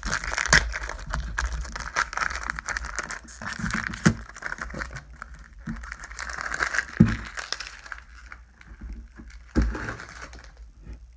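Foil wrapper of a Pokémon booster pack crinkling and crackling as it is torn open and handled, thinning out in the second half, with a few soft thumps.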